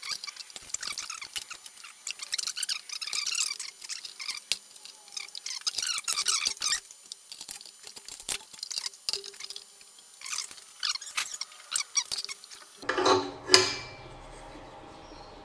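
Hand tools clicking and scraping against a round sheet-steel disc on a steel workbench as clamps are fitted to it and it is centred, with many light ticks and high squeaks. About thirteen seconds in the sound changes and a short, louder burst stands out.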